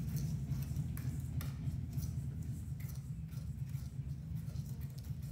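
Wire whisk stirring buttermilk crumpet batter in a metal mixing bowl, its wires clicking and scraping against the bowl in quick, irregular strokes, over a steady low hum.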